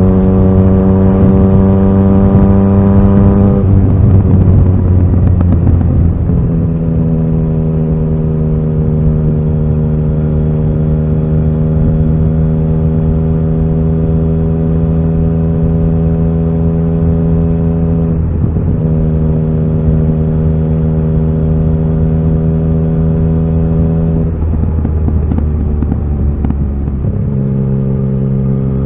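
Yamaha XSR900 inline-three engine running under way at a steady pitch. The engine note drops about four seconds in, dips briefly a little past halfway, and changes again near the end, settling lower, as the rider shifts gears or eases off.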